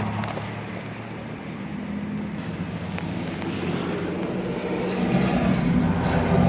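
A 1956 Ford Thunderbird's 312 V8 running with road noise as the car is driven, heard from inside the cabin. It grows steadily louder as the car picks up speed toward the end.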